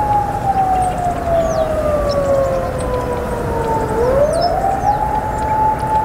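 A siren holding a long steady tone that slowly sinks in pitch, then swings back up to its first pitch about four seconds in. Short, high bird chirps sound faintly above it.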